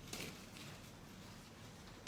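Faint, brief rustle of craft materials being handled on a work table just after the start, then quiet room tone.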